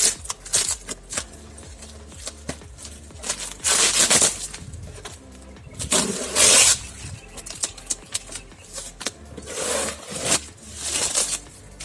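Plastic wrapping being pulled and torn off a long cardboard parcel, in several bursts of crinkling and ripping with scrapes against the cardboard.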